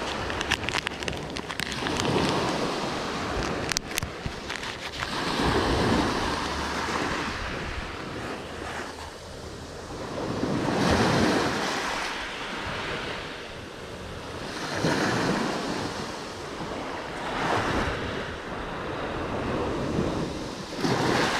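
Small waves of a calm Mediterranean sea washing onto the shore, each wash swelling and fading every few seconds, with some wind on the microphone. A few sharp clicks come within the first four seconds.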